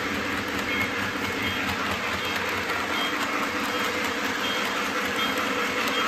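Lionel model trains running on the layout's track: a steady rumble and rattle of wheels and motors. No train whistle stands out.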